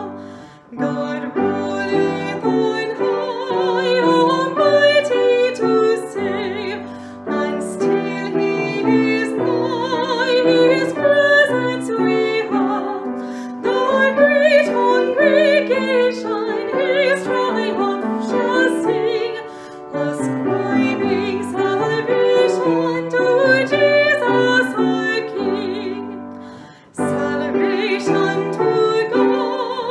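A woman singing a hymn solo with a wavering vibrato, accompanied by piano, with short breaks between phrases.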